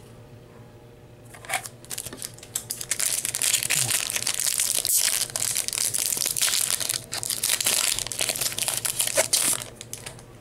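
Foil Yu-Gi-Oh booster pack wrapper crinkling densely as it is handled and torn open by hand. It starts about two seconds in and stops shortly before the end.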